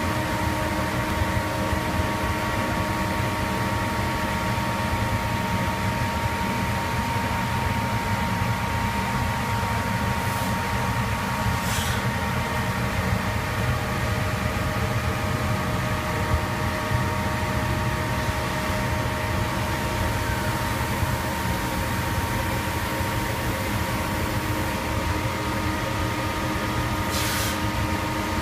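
DMG Gildemeister Twin 65 CNC lathe powered up and humming steadily, several steady whining tones over a low rumble. Brief hisses come twice a little before halfway and once near the end.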